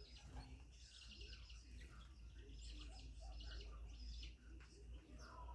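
Faint chirping of birds: many short, high calls overlapping throughout, over a low steady hum.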